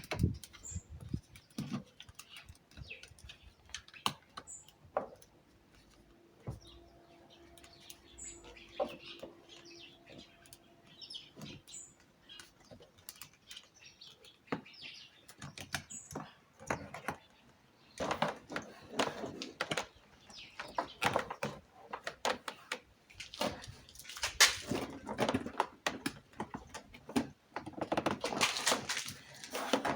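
Hand work on an Alfa Romeo 166 door panel: scattered clicks, knocks and plastic rattles, growing into dense bursts of rattling in the second half, with short high chirps here and there.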